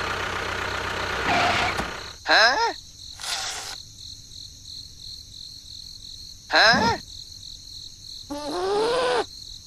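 Steady cricket chirping throughout. An engine-like noise from the toy tractor runs for the first two seconds, then stops. Three short voice-like calls glide up and down in pitch: one about two seconds in, one near seven seconds, and a longer one near the end.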